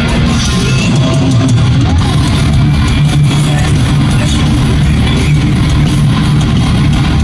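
Thrash metal band playing live through an arena PA: distorted electric guitars, bass and drums, loud and bass-heavy as heard from the crowd.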